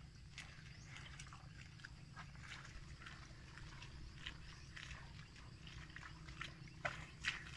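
Water buffalo grazing, tearing off grass and chewing it in irregular crisp crunches, with two louder snaps near the end.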